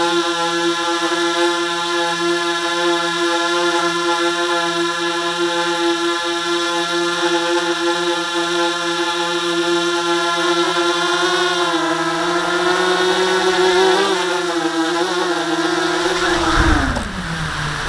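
Small quadcopter drone's propellers humming at a steady pitch in flight, the hum wavering as it comes down. About sixteen and a half seconds in it sets down on the wooden boardwalk with a thump, and the motors wind down, the hum falling in pitch.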